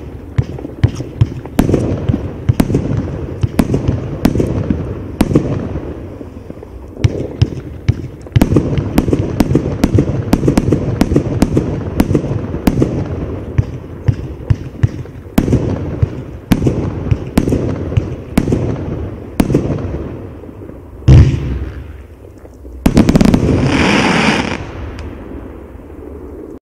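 Absolute Fireworks 'Rolling Thunder' 30 mm firework cake firing loud single shots in a steady run, about one to two sharp bangs a second, each echoing with a low rumble. About two-thirds through comes a heavier thump, then a loud noisy rush lasting about a second and a half, and the sound cuts off suddenly near the end.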